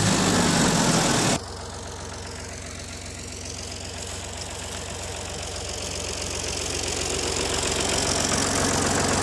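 Ford 3600 tractor's three-cylinder diesel engine running again after the air in its fuel lines was purged by tow-starting it in gear. It is loud and noisy for about the first second, then settles to a steady idle that grows gradually louder toward the end.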